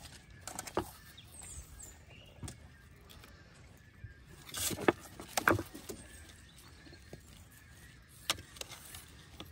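Hand salting of gutted whole fish in a stainless-steel bowl with a perforated insert: the wooden salt scoop, the fish and the metal give scattered light clicks and knocks, thickest about halfway through.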